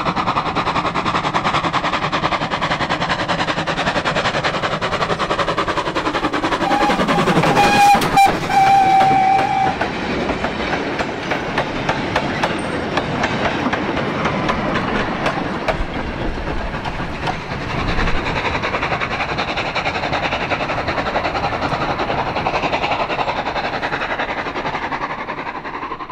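Ex-GWR 57xx pannier tank steam locomotive L92 working a goods train past at close range: rapid exhaust beats, with a whistle held for about three seconds as it passes. Then the goods wagons roll by, wheels clicking over the rail joints.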